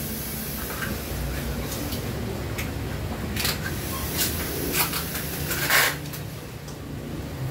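Packing tape being pulled from the roll and pressed down onto a long cardboard box, in several short rasps, the longest nearly six seconds in, over a steady low hum.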